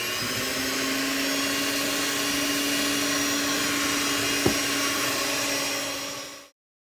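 Electric hand mixer running at a steady speed, its beaters whirring in a stainless steel bowl as the wet cake ingredients and oil are beaten together. A single knock about four and a half seconds in; the sound cuts off suddenly near the end.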